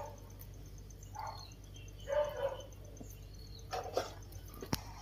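A few short animal calls from farmyard animals, a pig, hens and baby monkeys, feeding together, with a sharp click near the end.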